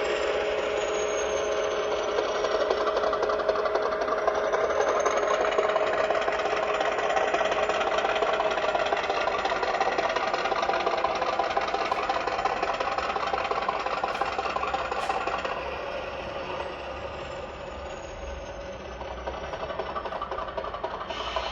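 Class 50 diesel locomotive engine sound played by a Zimo model-railway sound decoder through the model's small round speaker, running steadily and dropping to a quieter engine note about three quarters of the way through.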